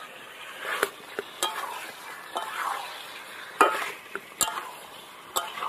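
A spatula stirs and scrapes chicken, mutton fat and potatoes in spice paste around a kadai over a wood fire, and the masala sizzles as it dry-fries (the kosha stage, oil separating from the spices). Several sharp knocks of the spatula against the pan punctuate the scraping.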